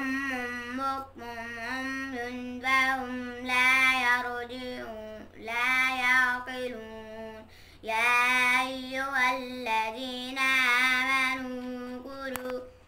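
A boy chanting Quranic recitation in Arabic, a melodic tilawat with long held notes, in phrases broken by short pauses about five and eight seconds in.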